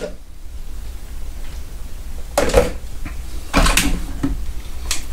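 Blender container and lid being handled: four short clunks and scrapes in the second half, over a low steady hum.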